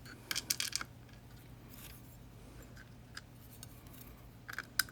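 Small metal clicks and taps from handling the parts of a disassembled Yale 2000 Plus lock: a quick cluster of clicks about half a second in, a few scattered ticks, then two sharper clicks near the end.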